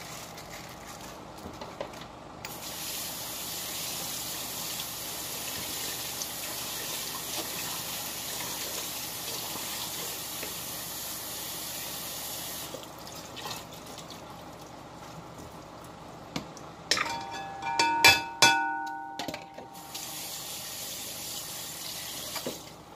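Kitchen tap running into a sink for about ten seconds, then again briefly near the end. In between come a few sharp clanks of a metal bowl that ring on.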